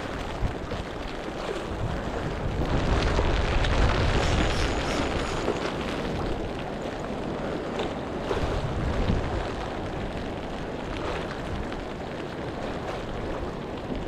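Storm wind buffeting the microphone: a rumbling rush of noise that builds about three seconds in and eases off after a few seconds.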